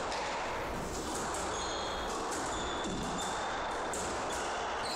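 Squash rally: the hard rubber ball cracks off rackets and court walls again and again, with short high squeaks from the players' shoes on the wooden floor.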